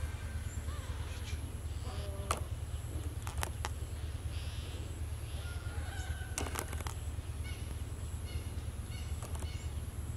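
Faint, short mews from newborn kittens amid rustling and sharp clicks of them shifting on a knitted sleeve, over a steady low rumble.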